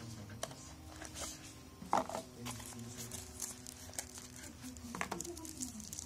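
Cardboard packaging and a plastic bag being handled: a box lid slid open and a wrapped device lifted out, with plastic crinkling and scattered light clicks and taps, the sharpest about two seconds in and another about five seconds in.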